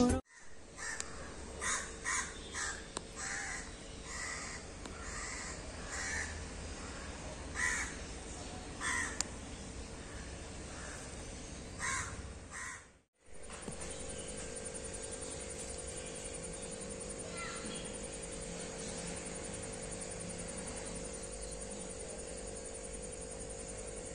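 A bird calling in short, repeated calls, about ten over the first twelve seconds, over a faint background hiss. After a brief dropout about thirteen seconds in, a steady low hum takes over.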